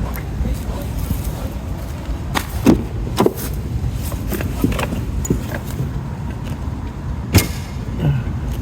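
Wind rumbling on the microphone, with scattered sharp clicks and knocks from handling a pickup truck's hood, the loudest one near the end.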